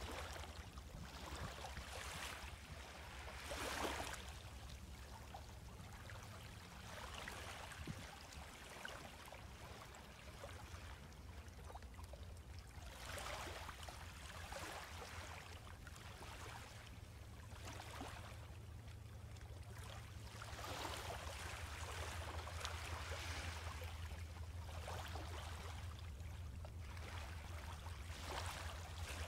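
Small waves lapping onto a sandy beach of a calm sea, each wash swelling and fading every two to three seconds, over a steady low rumble.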